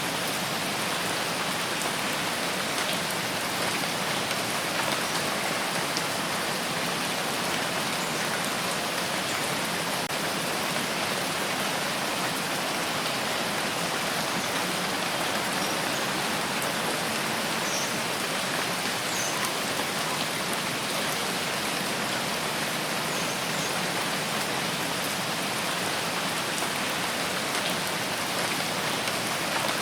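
Steady rain falling, an even hiss of many drops with faint scattered drop ticks.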